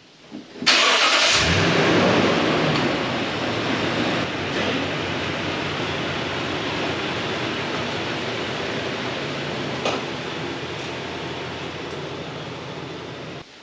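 A vehicle engine starting and running, with a broad rushing noise over a steady low engine note that slowly fades and then cuts off suddenly near the end.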